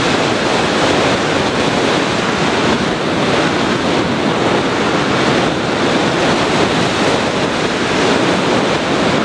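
Steady rushing of wind over the onboard microphone of a Sky Surfer RC plane in flight.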